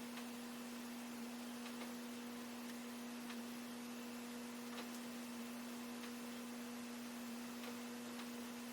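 A steady electrical hum on one low pitch, with faint scattered ticks.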